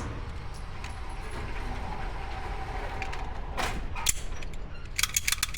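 The tail of a gunshot dies away at the very start. Then comes a steady low background with a few sharp mechanical clicks about three and a half and four seconds in, and a quick run of clicks near the end.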